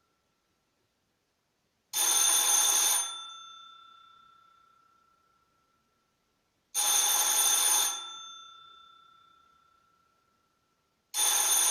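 Electric doorbell ringing three times, about four and a half seconds apart: each ring is about a second of rapid ringing, then the bell's tone dies away over a few seconds. The third ring starts near the end.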